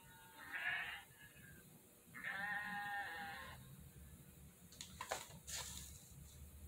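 Sheep bleating twice: a short bleat about half a second in, then a longer, quavering one about two seconds in. A few sharp clicks follow near the end.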